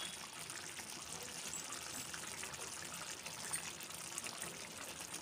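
Chicken curry simmering in a steel pot on a gas stove: a quiet, steady bubbling hiss with faint ticks.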